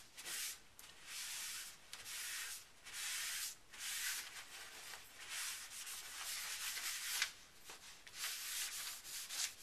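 Paper towel rubbing back and forth over a plastic Cricut cutting mat in repeated hissing strokes, about one a second, wiping away the last bits of old adhesive loosened by an adhesive remover.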